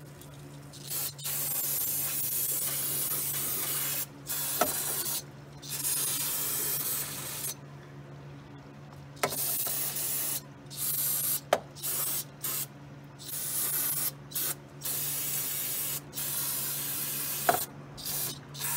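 Aerosol brake cleaner sprayed through an extension straw onto grimy suspension and brake parts, in about a dozen bursts of hiss from a fraction of a second to a couple of seconds long, with short pauses between.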